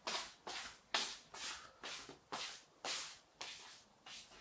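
Shuffling footsteps scuffing on a tile floor, about two a second, fading a little toward the end.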